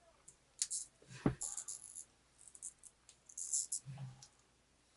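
Small parts of a build-it-yourself wind-up triceratops kit clicking and rustling as they are handled and fitted together, with a sharper knock about a second in.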